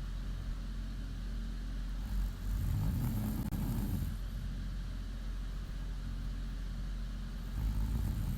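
A woman snoring in her sleep: a low snore swells about two and a half seconds in and another begins near the end, roughly five seconds apart, over a steady low hum.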